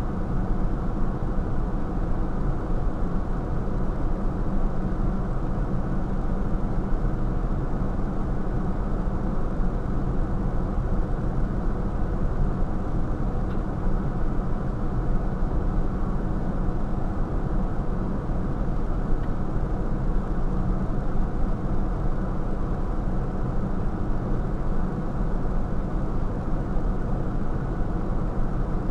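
An engine idling: a steady, low, even rumble that does not change.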